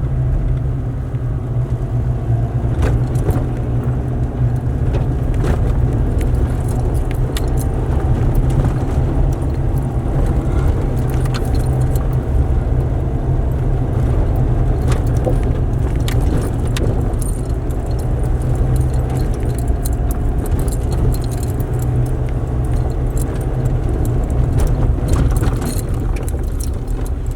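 A vehicle driving, heard from inside: a steady low engine and road rumble with frequent rattling and clinking throughout.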